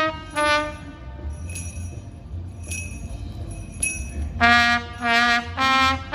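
Street musician's brass instrument playing: a couple of short notes, a pause with three light bell rings about a second apart, then a run of loud held notes.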